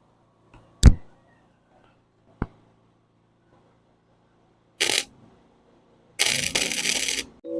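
A sharp metallic click, then two short bursts of crackling electric welding arc, the first brief and the second about a second long: tack welds joining steel pieces.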